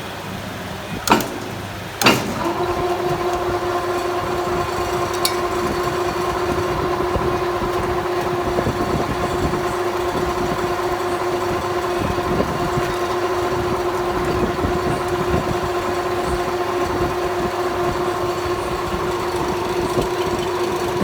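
Metal lathe running steadily with a constant hum and whine. Two sharp clunks about one and two seconds in, then the sound steps up as the machine comes up to speed.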